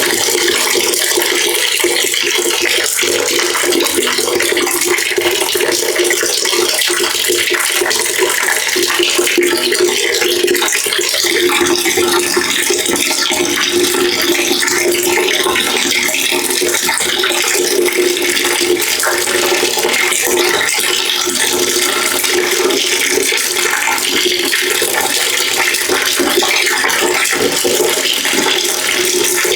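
Water running steadily into a bucket, splashing without a break. A low note within the splashing grows stronger about a third of the way through.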